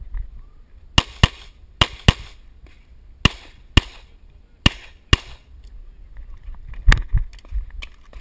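Pistol shots fired in quick pairs: eight shots as four double taps, the first two pairs a quarter-second apart, the last two about half a second apart. A dull low thump follows near the end.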